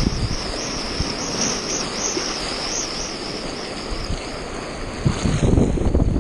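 Whitewater rushing and fizzing around a stand-up paddleboard as it rides through broken surf, with wind buffeting the microphone, heaviest at the start and again from about five seconds in.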